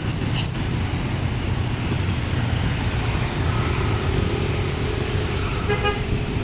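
Bus engine running steadily with road noise. A faint, short pitched horn note sounds near the end.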